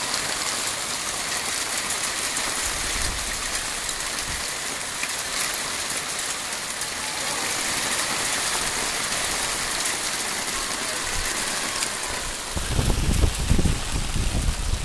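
Hail pelting a wooden deck: a dense, steady patter of many small ice pellets clicking on the boards. About two seconds before the end, a low rumble comes in gusts.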